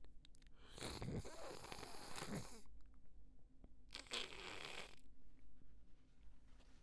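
A person blowing their nose into a tissue: a long wet, honking blow lasting about two seconds, then a shorter blow about four seconds in.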